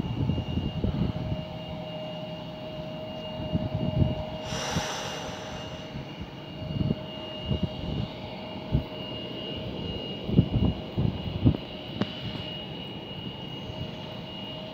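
Bombardier CRJ regional jet's rear-mounted turbofans at takeoff power, a steady high whine over a rumble as the jet rolls down the runway and climbs away. A brief rush of hiss comes about four to five seconds in. Irregular low thumps from wind buffet the phone microphone throughout.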